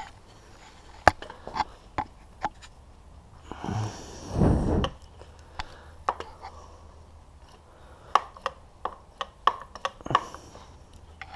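Engine parts and tools being handled on a workbench: scattered light clicks and knocks, with a short rushing noise about four seconds in.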